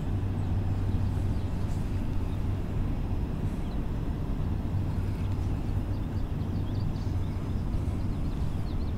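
Steady low outdoor rumble with a constant low hum beneath it, and a few faint, short high chirps now and then.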